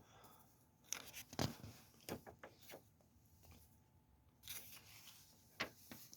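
Faint rustling and crinkling of a paper comic book being handled and its pages turned, with a few short sharp crackles scattered through.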